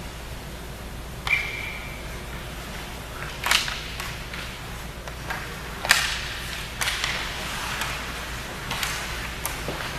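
Ice hockey play in a rink: a series of sharp clacks of sticks and puck striking the ice and boards, the loudest about six seconds in, with a brief ringing ping after the first clack, over the hum of the rink.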